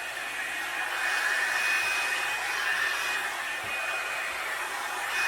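Revlon One-Step hair dryer brush blowing steadily: a constant rush of air with a thin high whine from its motor, as it is drawn through damp hair.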